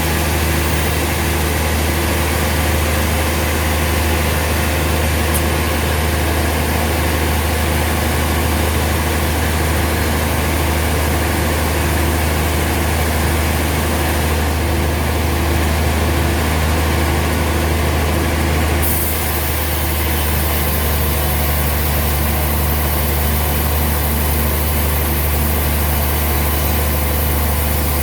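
Sawmill machinery running with a loud, steady, low engine drone.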